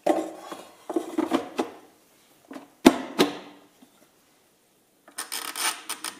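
Kitchenware being handled at an air fryer: several light clicks and knocks, a sharp clack about three seconds in, then a rasping rattle near the end.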